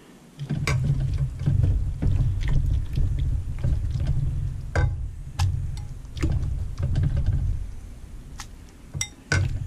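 A metal spoon stirring and scooping through thick cooked cabbage soup in a pot: a low rumbling scrape, broken by several sharp clinks of the spoon against the pot's side.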